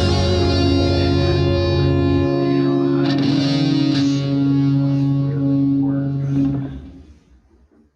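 Rock music with distorted electric guitar holding sustained chords, fading out about six and a half seconds in.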